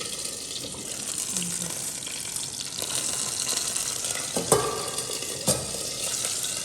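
Chicken chop sizzling steadily in a stainless-steel skillet, with two short knocks of a utensil on the pan near the end.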